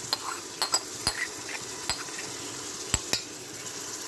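Green masala paste scraped off a metal spoon into a steel pot of ghee-fried onions, the spoon knocking and clinking against the vessel about seven times at uneven intervals over a steady sizzle of frying.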